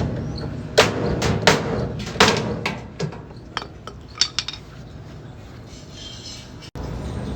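Sharp metal knocks and clanks on a washing machine's thin sheet-metal cabinet, a dozen or so in the first four seconds, then a quieter steady background; the sound cuts off abruptly near the end.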